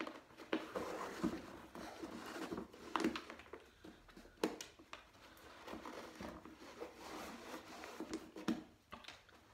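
Laces being pulled out through the eyelets of a Chaya Melrose Elite roller skate boot: a dry rasping rustle in repeated stretches as the lace is drawn through, with a few light clicks along the way.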